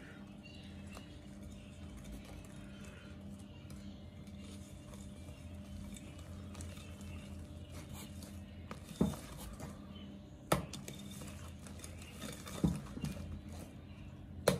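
Wire whisk stirring flour into a thick batter in a glass bowl, scraping and tapping against the glass, with a few sharper knocks on the bowl in the second half. A steady low hum runs underneath.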